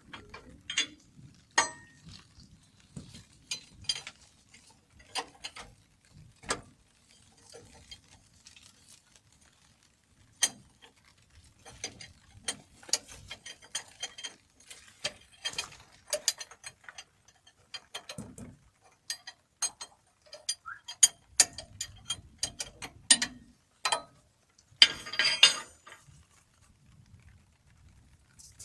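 Hand tools working the main relief valve out of an excavator's hydraulic control valve block, engine off: scattered sharp metal clicks and knocks, with quick runs of clicks in the middle and a short noisy burst near the end.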